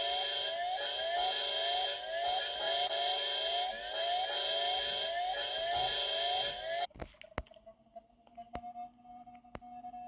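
Electronic emergency alert alarm tone: rapidly repeating rising sweeps over steady tones, cutting off suddenly about seven seconds in. A much fainter steady tone with a few scattered clicks follows.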